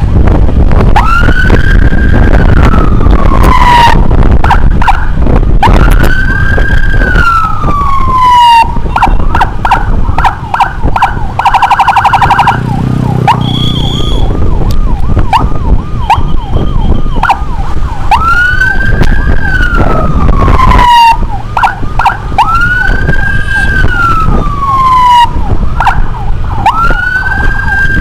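Electronic emergency-vehicle siren switching between patterns: long wails that rise and fall over about three seconds each, and stretches of fast, short yelps, with a brief steady buzzing tone near the middle. Heavy wind and road rumble sit underneath.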